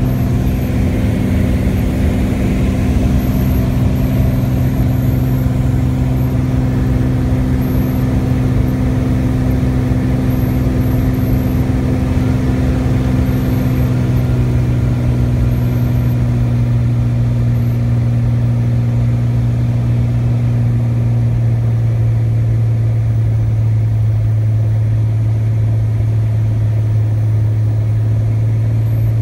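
Beech Debonair's six-cylinder piston engine and propeller droning steadily, heard from inside the cockpit during the landing approach. The tone dips slightly about halfway through.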